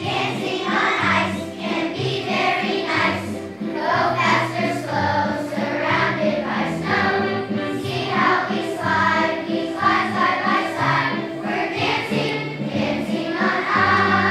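Children's choir singing a Christmas song to musical accompaniment, with wooden xylophones struck with mallets.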